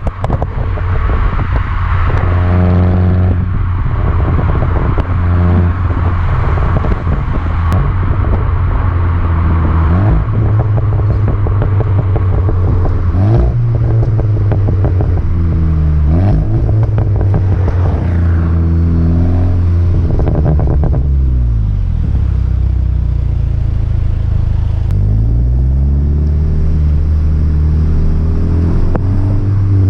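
Volkswagen Golf GTI Mk6's turbocharged 2.0-litre four-cylinder running through an Akrapovic exhaust, its pitch falling and rising several times as it revs and eases off. Rapid crackles and pops from the exhaust run over it, programmed in by an Integrated Engineering stage 2 tune.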